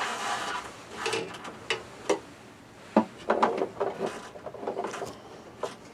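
Scattered clicks and scraping with a few sharp knocks as new screws are put into the lift mechanism bracket of a Fantastic Fan roof vent.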